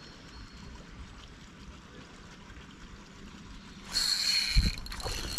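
Faint steady outdoor background, then about four seconds in a sudden louder rushing hiss with a thin high whine in it and a single low thump.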